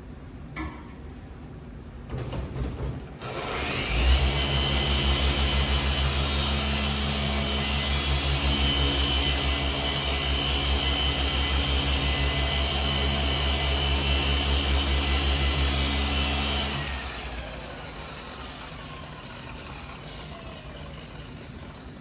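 Random orbital polisher (a Rupes) starting about three seconds in and running steadily with a low hum and a high whine while its foam pad works cutting compound into oxidized paint. After about thirteen seconds it is switched off and its whine falls away as it spins down.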